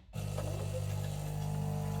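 De'Longhi Magnifica Evo coffee machine starting up abruptly and running with a loud, steady mechanical hum.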